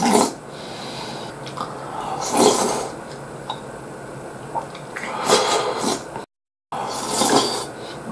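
A person slurping thick, rich soup-sauce off a spoon, several wet slurps a couple of seconds apart.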